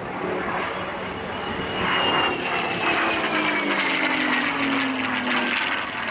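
Supermarine Spitfire's piston engine as the fighter flies past overhead. Its note gets louder about two seconds in, then falls slowly in pitch as the aircraft goes by.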